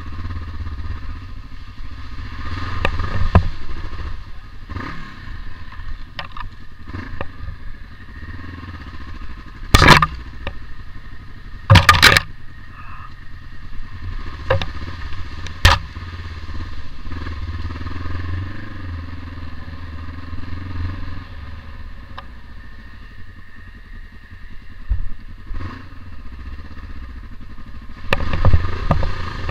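Trail motorcycle engine running at low speed along a muddy, rutted track, with a few sharp knocks as the bike jolts over the ruts, the loudest about ten and twelve seconds in. Near the end the engine gets louder as the bike goes into a deep puddle, with splashing.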